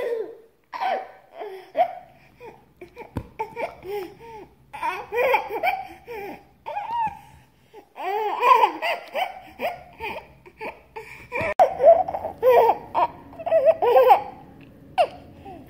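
Baby laughing in short, high, repeated bursts of giggles, growing louder and more continuous about halfway through.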